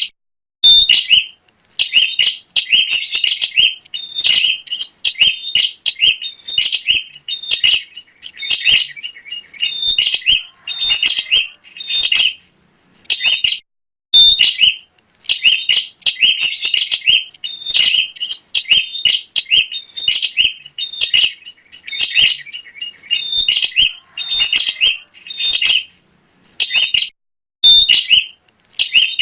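Prenjak (prinia) singing energetically: rapid, loud bursts of high, sharp chirps repeated phrase after phrase, with brief pauses between runs.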